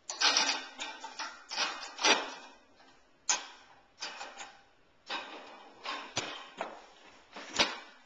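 Dishes clattering and knocking as they are set into a dishwasher's wire racks, a string of irregular sharp knocks, ending with a louder knock near the end as the dishwasher is closed.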